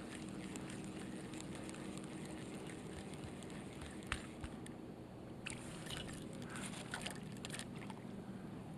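Faint scattered clicks and ticks from a spinning reel and rod as a soft-plastic lure is twitched and wound back across the water, over a quiet, steady background hum.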